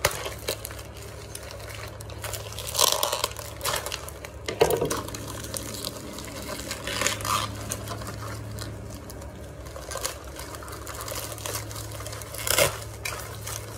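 Plastic lure packaging being handled and opened: scattered rustles, clicks and knocks, the loudest a few seconds in and near the end, over a low steady hum.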